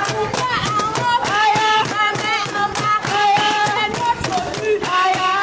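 Group of women singing a strike song together while clapping their hands in rhythm.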